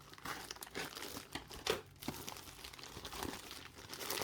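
Plastic packaging crinkling and rustling in irregular crackles as a parcel is unpacked by hand, with one sharper crackle a bit under two seconds in.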